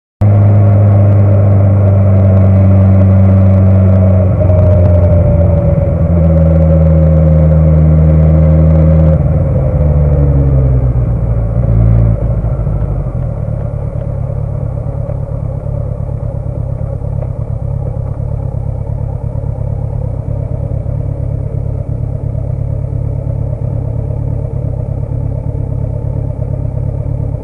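Motorcycle engine running loud and steady, its pitch sinking between about 9 and 12 seconds in as the bike slows. After that the engine tone gives way to a quieter, steady rushing noise.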